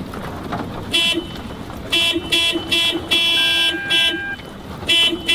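1999 Toyota Corolla's car alarm going off about a second in, sounding a horn in short, rapid honks, about two or three a second, with one held longer and a brief break before it starts again.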